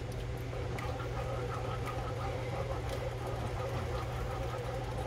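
Steady low mechanical hum from a kitchen appliance or fan, with a few faint clicks of a spoon against a metal saucepan as a thick sauce is stirred.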